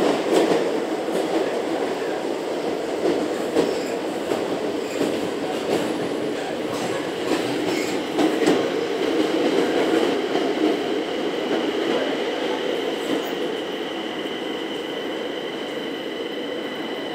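Madrid Metro Line 9 train running through the tunnel, heard from inside the car: a steady rumble with scattered wheel clicks. From about halfway, several steady high tones join in and the noise eases off as the train comes into the station.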